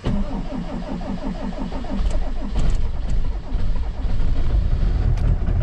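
Cold diesel camper van engine cranking on the starter motor with a rapid even rhythm, catching about two seconds in and settling into a steady idle: a cold start at about −10 °C after several glow-plug cycles.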